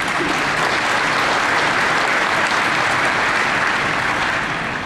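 Audience applauding: a steady round of clapping that eases off slightly near the end.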